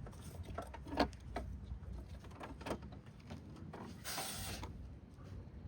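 A few knocks and clunks and a brief scrape as the Teletype Model 33 unit is handled and set on a scale, over a steady low rumble of outdoor background noise.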